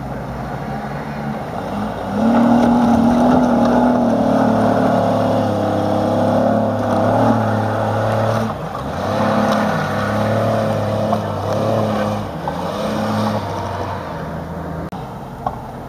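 Jeep Cherokee XJ's engine revving hard under load while climbing a steep muddy slope, the revs jumping up about two seconds in and held high, with brief drops about eight and twelve seconds in, then easing off near the end.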